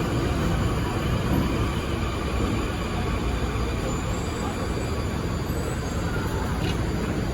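Steady low rumble of a Rio Metro series 4000 train in an underground station, with indistinct voices of people on the platform.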